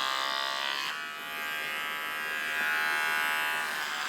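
Electric hair clippers buzzing steadily as they cut through long, thick hair. The motor is labouring under the load, described as "stressed with that much hair". The buzz drops and shifts about a second in, then strengthens again.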